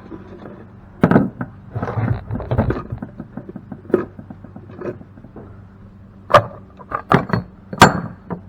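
Irregular knocks and clunks of cast-aluminum pump parts and tools being handled during disassembly, with the loudest clanks near the end.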